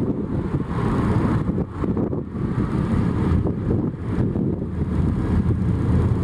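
Jet airliner's engines rumbling during takeoff, a steady low roar, with wind buffeting the microphone in uneven gusts.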